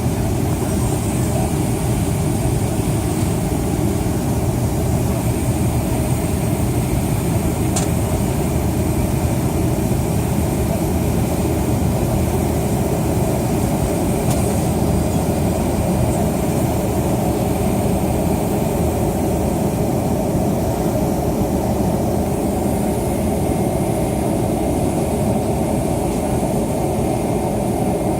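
Cabin noise inside a McDonnell Douglas MD-88 during takeoff: the rear-mounted turbofan engines at high power and the rush of air make a loud, steady rumble.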